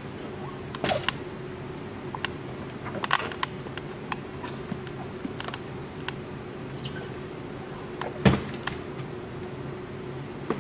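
Cardboard toy box being handled and turned in the hands: scattered light clicks and knocks, with one louder knock about eight seconds in, over a steady low hum.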